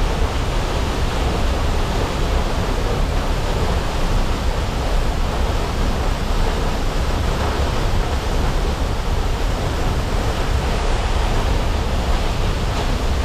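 Waterfall heard from close behind the falling sheet of water: a loud, steady rush of water.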